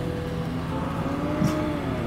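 A cow mooing, one long low call that rises and then falls, over the steady low running of a vehicle's engine moving slowly through the herd.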